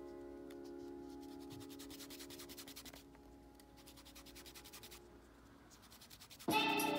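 A drawing pencil scratching and rubbing on paper in quick repeated strokes. Background music's held chord fades away over the first few seconds, and loud music cuts back in near the end.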